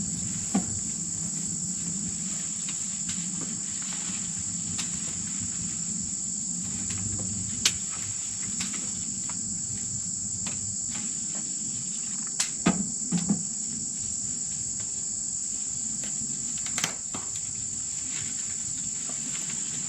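Steady high-pitched chorus of crickets, with a low steady hum beneath it. A few sharp clicks and knocks come at scattered moments, including a cluster a little past halfway.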